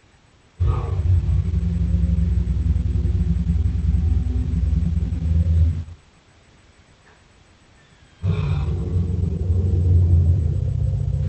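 Film Tyrannosaurus rex sound effect: two long, deep rumbling growls, each about five seconds, separated by a short pause about halfway through.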